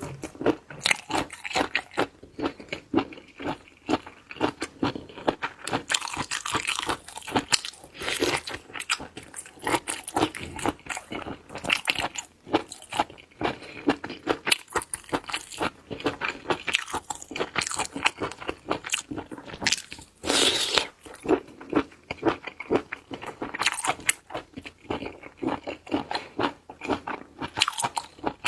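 Close-miked chewing of crunchy seafood: a dense, continuous run of crunches and bites, with louder clusters now and then.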